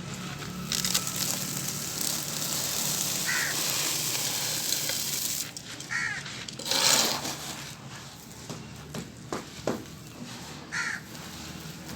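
Crushed charcoal pouring and crumbling: a dense gritty hiss for about the first five seconds, then scattered crunches and crackles. A bird calls three short times in the background.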